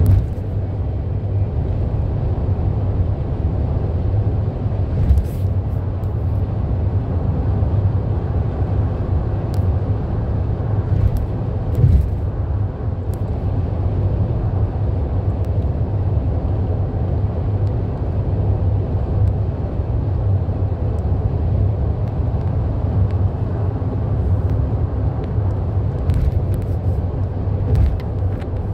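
A car cruising at freeway speed: a steady low rumble of road and tyre noise with engine drone, with a couple of brief faint knocks.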